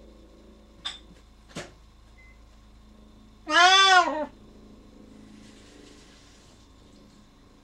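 Siamese cat giving one loud meow, rising then falling in pitch, about halfway through; he is calling to be let through a closed door to follow his owner. Two short clicks come before it.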